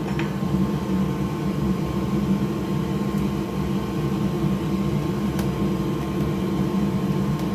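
Steady low whirring hum of a running motor or fan, unchanging throughout, with a couple of faint light clicks.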